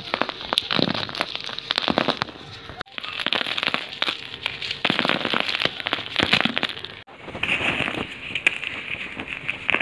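Dry sand-cement-clay balls being crumbled by hand: a dense, gritty crackling and crunching as the lumps break and the grains fall. The sound cuts out abruptly twice, about three and seven seconds in.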